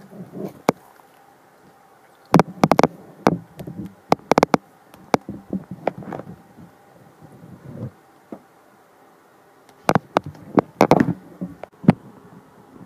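Handling noise: clusters of sharp clicks and knocks as dolls and the camera are moved about by hand, over a faint steady buzz.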